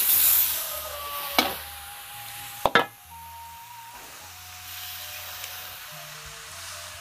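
Beef and spice paste sizzling in a large wok as it is stirred. The sizzle is strongest at first and then dies down, with two sharp knocks against the pan. Soft background music with low notes plays underneath.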